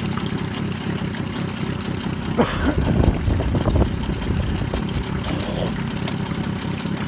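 Mercury 20 hp two-stroke twin outboard idling steadily in a test barrel, running somewhat louder for about a second and a half from roughly two and a half seconds in.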